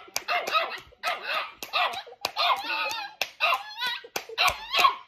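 Small dog barking over and over at hand clapping, with sharp claps about twice a second between and over the barks.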